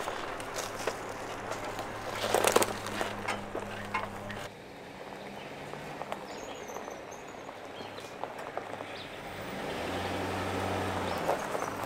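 Full-size Chevy Silverado pickup crawling along a dirt forest trail: a low, steady engine hum with tyres crackling over leaf litter and twigs, loudest about two and a half seconds in. Later the truck is heard from further off, and near the end its engine note rises briefly as it climbs toward the camera.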